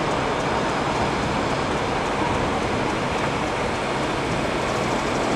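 Steady rushing hiss of a standing Peppercorn Class A1 steam locomotive, 60163 Tornado, blowing off steam while it waits at a signal.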